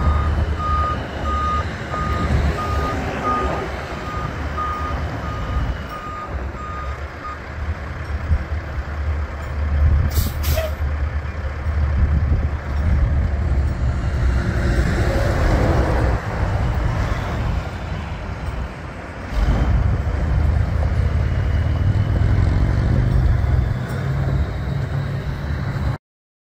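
2001 Kenworth T800 day cab truck's diesel engine running as the truck moves. A reversing beeper beeps steadily through the first seven seconds or so. A short burst of air-brake hiss comes about ten seconds in. The sound cuts off abruptly near the end.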